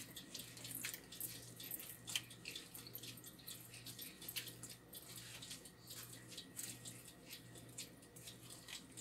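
Wooden spoon pressing and stirring wet grated coconut in a wire-mesh strainer, making faint, irregular scraping and clicking as the coconut milk is squeezed out, over a low steady hum.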